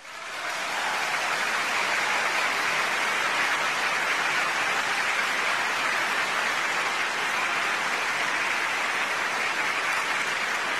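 Large theatre audience applauding: a dense, even wash of clapping that swells up within the first second and then holds steady.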